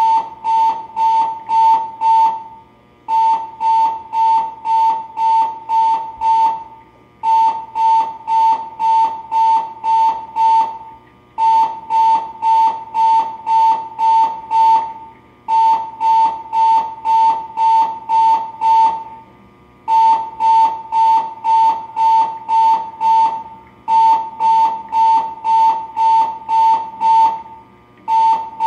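Electronic alarm beeping at one high pitch, about two to three beeps a second in runs of eight or so, each run broken by a short pause roughly every four seconds.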